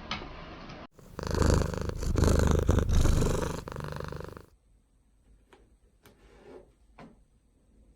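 Domestic cat purring loudly close to the microphone, a fast steady rattle that starts about a second in and stops abruptly after about three and a half seconds. A few faint clicks follow.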